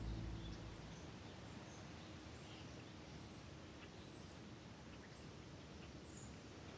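Faint outdoor background noise with a few short, scattered bird chirps. The last low notes of a song die away in the first moments.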